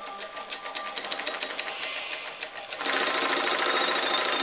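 Global industrial sewing machine stitching through denim. The stitch clicks speed up, with a thin steady whine for the first second. About two-thirds of the way in it jumps to a louder, continuous full-speed run.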